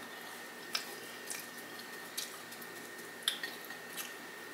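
Close-miked chewing of waffle with the mouth closed: a few soft, wet mouth clicks and smacks, roughly a second apart, over a faint steady high-pitched whine.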